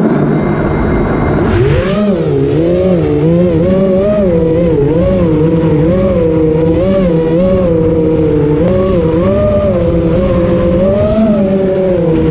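Brushless motors of a 5-inch FPV racing quadcopter (Brother Hobby Returner R4 2206, 2300 kV, on 4S), heard from its onboard camera. They spin at idle with a steady high whine, then throttle up sharply for takeoff about a second and a half in. After that comes a loud buzzing whine that swings up and down in pitch as the pilot works the throttle in flight.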